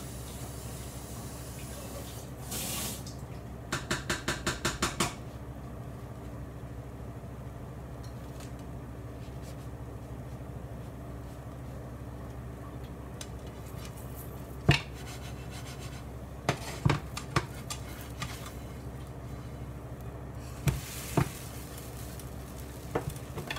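Kitchen utensil sounds over a steady low hum: a quick run of about ten clicks a few seconds in, then a few scattered sharp knocks of utensils against kitchenware.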